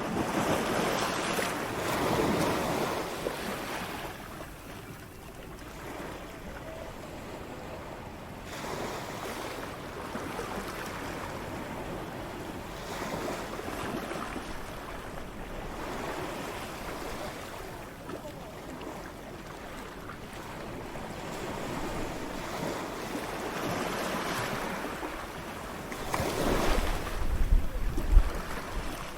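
Ocean waves breaking in a steady surf, the wash swelling and ebbing every few seconds. The loudest wave breaks near the end, with a low rumble under it.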